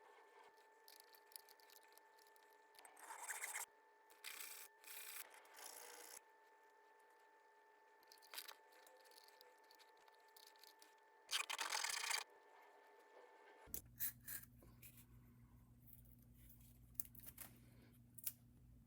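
Several short scraping or rubbing strokes, with quiet gaps between them. A low steady hum comes in about two thirds of the way through.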